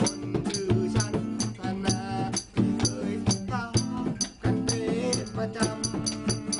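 Live informal music: an acoustic guitar strumming while a man sings, with sharp metallic taps keeping a quick beat, several each second.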